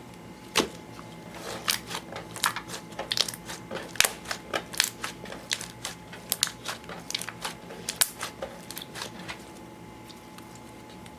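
Clear slime with eyeshadow mixed in being squeezed and worked by hand, giving a fast, irregular run of sharp clicks and pops that then stops.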